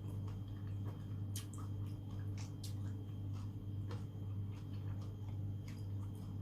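Close-miked eating sounds: scattered small wet clicks and smacks, a few a second, while seafood is eaten. A steady low hum runs underneath.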